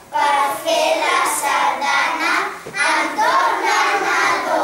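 Children's voices singing together.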